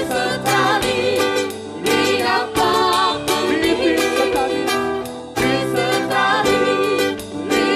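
Live gospel music: strummed acoustic guitar and keyboard accompanying singing voices, with a steady strummed beat.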